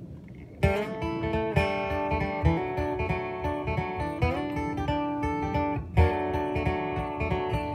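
Acoustic string band starts playing about half a second in, acoustic guitar to the fore over plucked upright bass notes.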